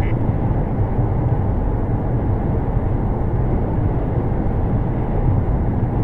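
Steady low rumble of road and engine noise inside a car cruising at highway speed, as picked up by a dashcam.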